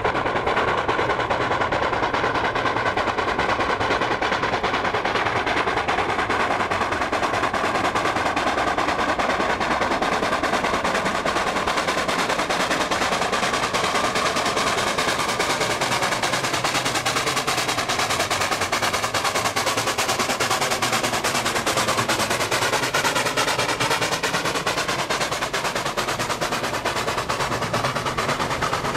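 Steam locomotive working hard, its exhaust beating in a fast, steady stream of chuffs while it throws sparks from its chimney.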